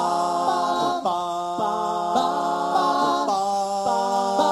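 A cappella doo-wop group singing a wordless vocal intro in close harmony: several voices hold chords over a bass voice, and the chords change about once a second.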